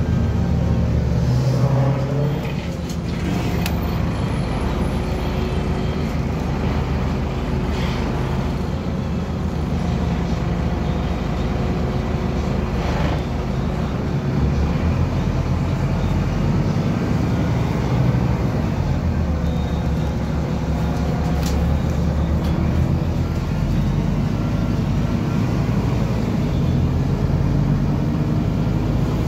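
Scania DC9-17 nine-litre five-cylinder diesel engine of a 2007 Scania CN270UB city bus running under way, heard from inside the passenger cabin with road noise. The engine's pitch shifts several times, and there are a few brief clicks from the cabin.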